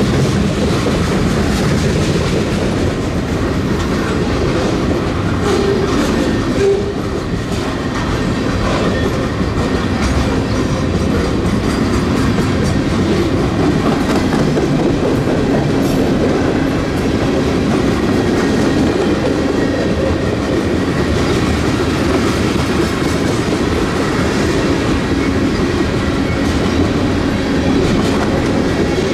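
Manifest freight train rolling past at close range, its steel wheels clacking and rumbling over the track in a steady, loud stream.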